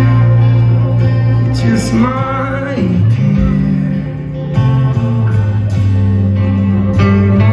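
Live band music: acoustic guitar strummed over electric bass and keyboard, with a wavering sung note about two seconds in.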